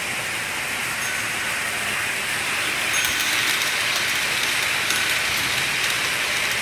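O scale model freight train running on three-rail track: a steady rolling rumble and hiss of metal wheels. It gets slightly louder about three seconds in as a string of hopper cars passes close by, with light clicks.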